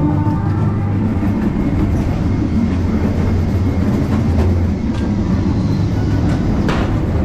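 An amusement-ride train running along its track: a steady, loud rumble of wheels with scattered clacks and knocks.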